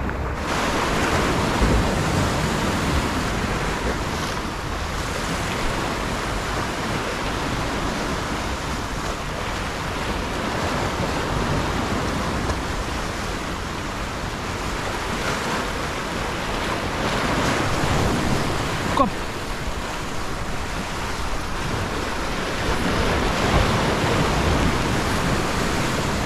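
Choppy sea waves washing and breaking over shoreline rocks, rising and falling in steady surges, with wind on the microphone. One sharp knock about nineteen seconds in.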